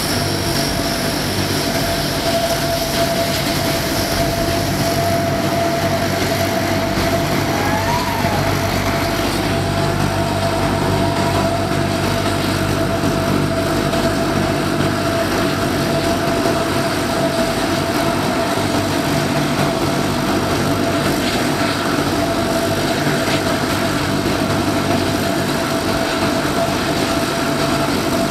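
Turboprop engines of NASA's Super Guppy cargo plane running steadily as it taxis, a constant engine whine over a low drone.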